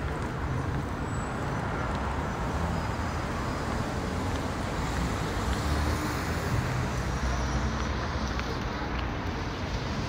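City street traffic noise: a steady low rumble of passing cars.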